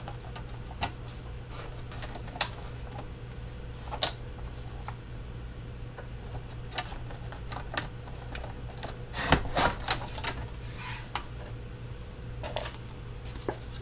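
Paper trimmer cutting cardstock: scattered clicks and taps as the card and cutting head are positioned, and a short scraping rustle about nine seconds in as the cutter is drawn along the rail.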